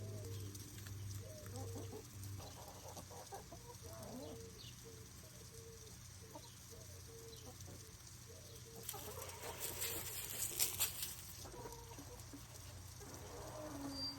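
Backyard hens clucking, a run of short low clucks. About nine seconds in comes a brief burst of rustling and clatter, the loudest sound.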